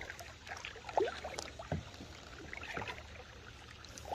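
Kayak paddle strokes on calm water: scattered small splashes and drips of water falling off the paddle blades.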